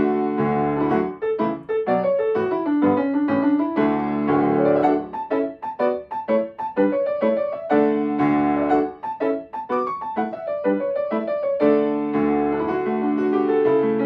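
Solo piano playing a bright, bouncy new-age melody over chords: short detached notes alternate with held, ringing chords.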